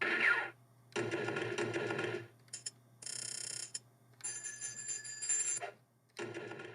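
A series of short ringing, bell-like tones in six separate bursts, the first with a falling sweep.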